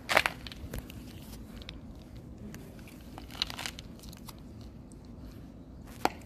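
Plastic treat packet crinkling in a hand in two short rustling bursts, one right at the start and another about three and a half seconds in, with a sharp click near the end.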